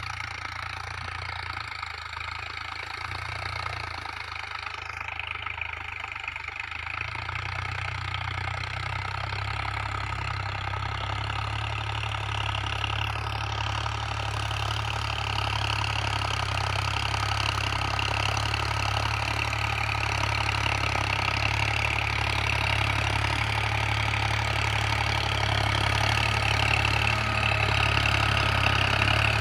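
New Holland 5510 tractor's three-cylinder diesel engine running steadily under load while pulling a cultivator through ploughed soil. It grows steadily louder as the tractor comes closer.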